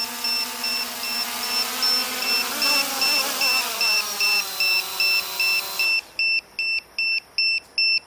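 A quadcopter's low-voltage battery alarm beeps steadily, about two and a half beeps a second, over the hum of its electric motors and propellers. The motor pitch wavers as it lands, then cuts off about six seconds in, leaving the beeper alone. The alarm means the 4S flight pack has run down to its low-voltage threshold.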